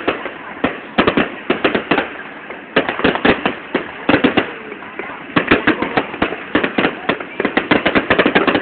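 Fireworks display going off: many sharp bangs and cracks at an irregular pace, some coming in quick clusters.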